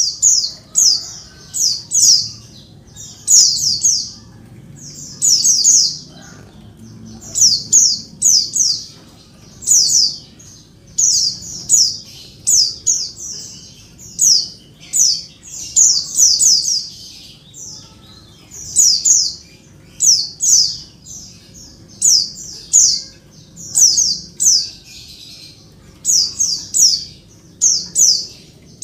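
Female white-eye (pleci) calling busily: quick clusters of two to four sharp, high notes, repeated about once a second with short pauses between. This is the female call used to prompt male white-eyes to answer and sing.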